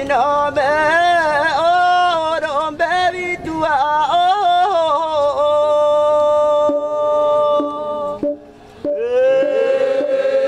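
A man chanting a traditional Kedang guest-welcome greeting into a handheld microphone: one solo voice with wavering, ornamented pitch that about halfway through settles into a long held note. It breaks off for a moment near the end, then takes up another held note.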